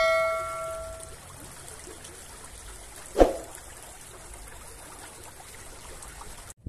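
Shallow stream water trickling steadily over stones. A bell-like ringing tone fades out during the first second, and a brief thump comes about three seconds in.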